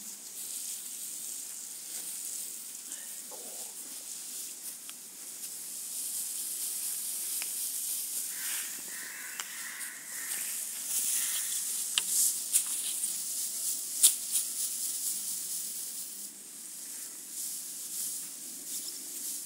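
Dry straw and coconut coir fibre rustling and crackling as the fibre is pulled apart and spread over the straw by hand, with scattered sharp crackles, a few louder ones about twelve and fourteen seconds in.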